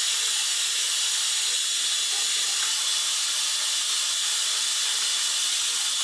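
Wollmer D707 Sapphire cordless stick vacuum running steadily through its pet-grooming brush attachment as the brush is drawn through a dog's coat: an even, airy high-pitched whir with a thin whine over it.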